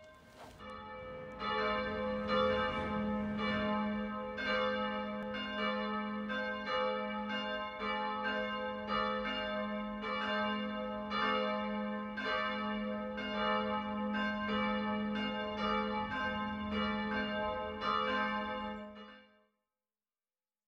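Church bells ringing a steady peal, the strokes overlapping under a sustained low hum; the peal fades in over the first second or two and stops shortly before the end.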